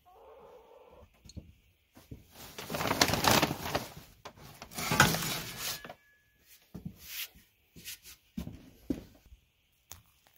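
Long-handled tools and a woven plastic feed sack being shifted in a cluttered shed corner: two long spells of rustling and scraping, then a few short knocks and rustles.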